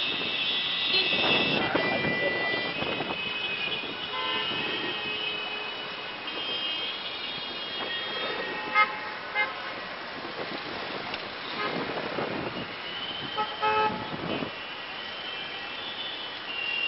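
Congested city traffic: many car horns honking at different pitches, some held and some in short toots, over a rumble of engines and vehicles.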